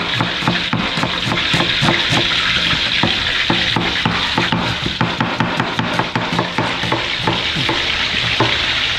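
Snakehead fish frying in hot oil in a wok: a steady sizzle with many small sharp crackles.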